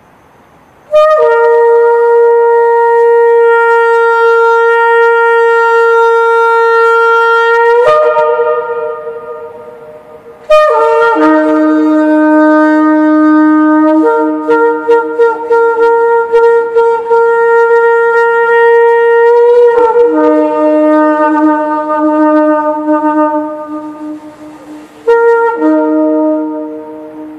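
Long spiralled Yemenite shofar blown in three blasts: a steady held note of about seven seconds that drops in pitch as it ends, then a long call switching back and forth between a higher and a lower note with a quick fluttering stretch in the middle, then a short final blast near the end. Each blast rings on in the echo of a concrete parking garage.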